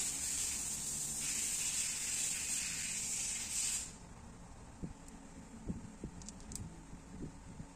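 A steady high hiss that cuts off abruptly about four seconds in, followed by a few faint clicks and taps as the metal plunger head is handled on the high-pressure fuel pump body.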